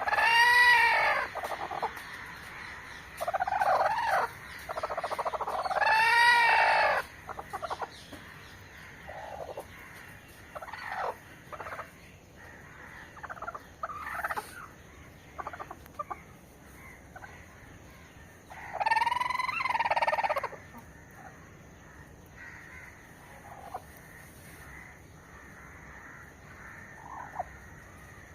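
Rooster crowing three times, each crow about a second and a half long: at the start, about six seconds in, and about nineteen seconds in. Softer, shorter chicken calls and clucks come in between.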